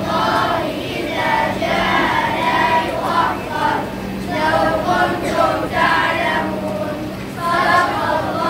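A group of schoolchildren reciting Quran verses together in unison, a chanted melodic recitation.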